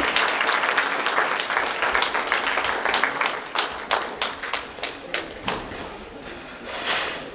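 Audience applauding, dense at first, then thinning after about three and a half seconds to a few scattered claps that die away.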